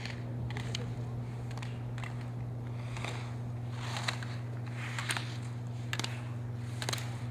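Slalom skis scraping across the snow, a hiss swelling with each turn about once a second, with sharp clacks of the gate poles being struck. A steady low hum runs underneath.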